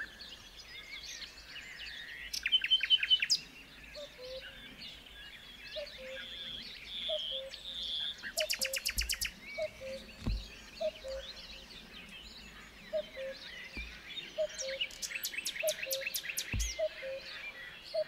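A chorus of wild birds singing and calling together, with fast trills and chirps over a short low note repeated about three times every two seconds. A few dull low thumps come through now and then.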